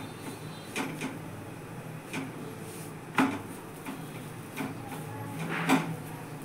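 Light knocks and clicks as a folded paratha is pressed and turned by hand on a dry iron tawa, with the pan shifting on the stove. The knocks come irregularly, about seven of them; the sharpest is about three seconds in and another comes near the end, over a steady low hum.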